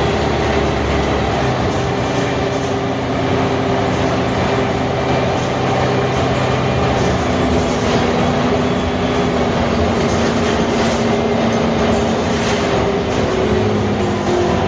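Mercedes-Benz O345 Türk city bus under way, its diesel engine running over steady road and body rumble. The engine note changes pitch about halfway through and again near the end.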